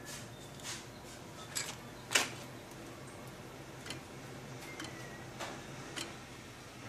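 Scattered light metallic clicks and taps as metal parts, an angle grinder and locking pliers, are handled and fitted on a drill press table, with one louder knock about two seconds in. A faint steady hum runs beneath.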